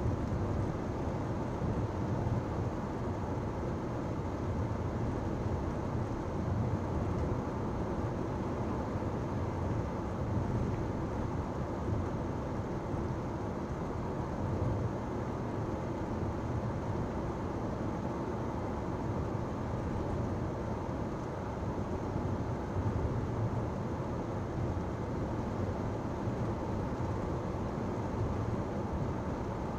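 Steady road and tyre noise and engine drone of a 2010 Toyota Camry LE (2.5-litre inline-four) cruising at an even speed, heard from inside the cabin as a low, unchanging rumble.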